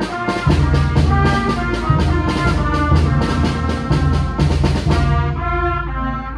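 School wind band of clarinets, saxophone and trumpets playing a full, rhythmic passage with a steady pulse of short accented notes, settling into held chords about five seconds in.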